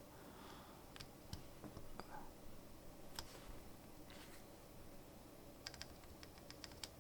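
Faint, scattered clicks of keys with lubed Durock V2 stabilizers being pressed on the bare plate and PCB, as the stabilizers are checked for ticking or rattle. A few single clicks come first, then a quick run of clicks near the end.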